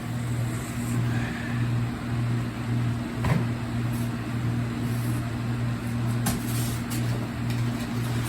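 A steady low hum, with a few light clicks and knocks from handling a cardboard shipping box, about three seconds in and again near the end.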